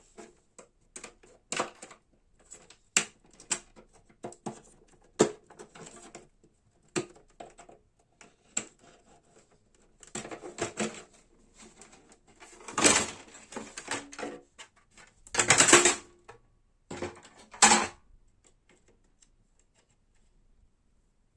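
Irregular clicks and knocks of hard plastic printer parts being handled, with louder bursts of clattering and scraping between about 10 and 18 seconds.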